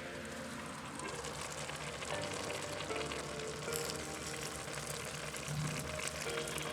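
Background music with food sizzling and crackling in hot oil in a pan beneath it.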